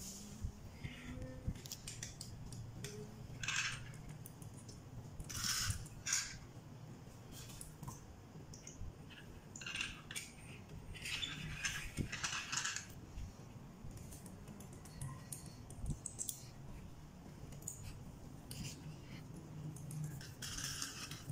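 Toy cars being set down and pushed across a tiled floor: irregular light clicks and short scraping rattles of small wheels and plastic on tile, a few of them lasting about a second.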